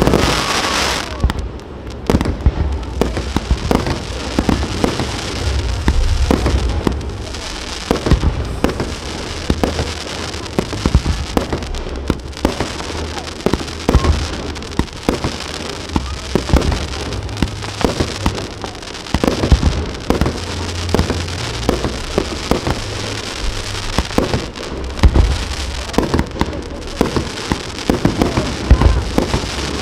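Fireworks display: shells bursting in a continuous stream of bangs and crackles, several a second, over a deep rumble.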